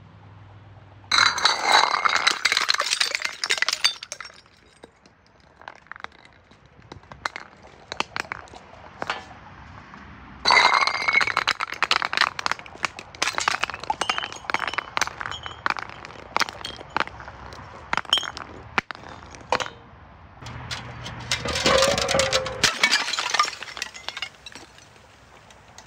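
Glass bottles breaking in three loud bursts of shattering, about a second in, about ten seconds in and about twenty seconds in. Between the bursts, glass clinks and tinkles in scattered sharp clicks.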